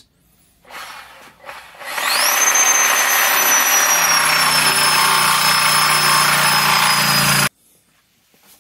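Reciprocating saw (Sawzall) cutting the old wear ring inside a jet-pump housing: the motor whine rises quickly about two seconds in, then runs loud for about five seconds, sagging slowly in pitch under load, and cuts off suddenly near the end. A few faint knocks come first as the blade is set against the ring.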